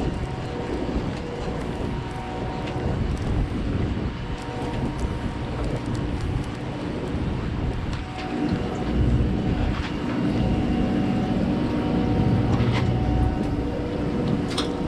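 Steady machinery hum on a fishing boat, with wind buffeting the microphone that grows heavier about eight seconds in, and a few light clicks.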